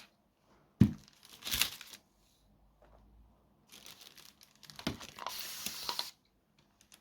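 A light knock, then two stretches of crinkling, rustling handling noise, the second one longer, as materials are handled at a resin worktable.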